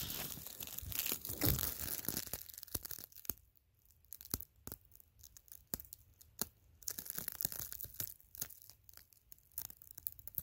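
Crunching footsteps in snow for about the first two seconds, then sparse, irregular crackles and pops of the black plastic shrink wrap on the cabin walls crinkling.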